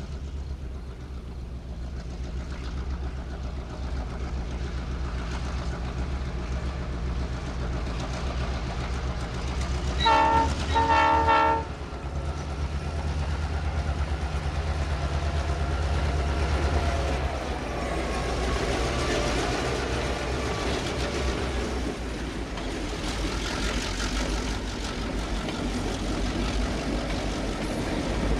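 Metrolink F59PH diesel locomotive, with its EMD 710 two-stroke engine, pulling a commuter train away from the station, the engine running with a steady low drone. About ten seconds in, its horn sounds two short blasts. Wheel and rail noise grows through the second half as the train draws closer.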